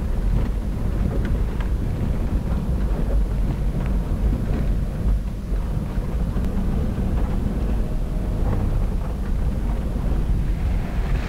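Land Rover Defender driving over a rough dirt track, heard from inside the cab: a steady low engine and road rumble with scattered knocks and rattles. Near the end a hiss rises.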